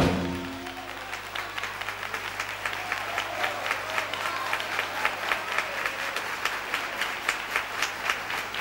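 Live audience applauding after a song. The band's final chord ends about half a second in, and the clapping continues, with individual claps standing out more sharply toward the end.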